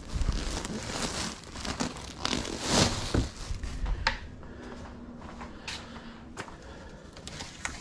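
Items being pulled out and handled by hand, making rustling and crinkling, loudest about three seconds in. This is followed by a few light knocks as the handling quietens.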